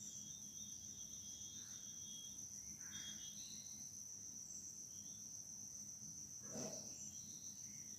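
Crickets trilling faintly in one steady high-pitched note, with a brief soft bump a little after six seconds in.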